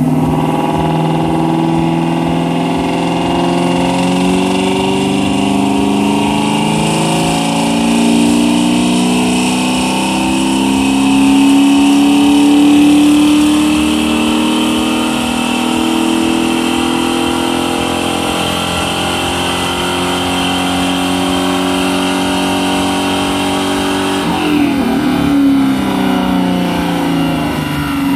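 2002 Mustang GT's naturally aspirated 4.6 L two-valve V8 running on a chassis dynamometer. Its pitch climbs slowly over the first dozen seconds, holds roughly steady, then drops suddenly about 24 seconds in.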